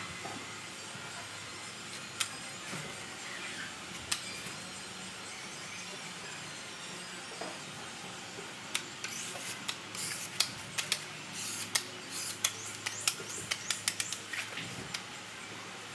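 Body-filler spreader working filler onto a tailgate panel: a few isolated sharp clicks, then from about halfway a quick run of short scrapes and taps, over a steady low hum.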